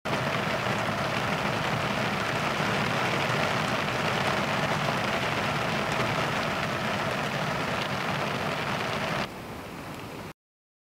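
Heavy rain falling close to the microphone, a dense steady hiss. It turns quieter about nine seconds in and then cuts off abruptly.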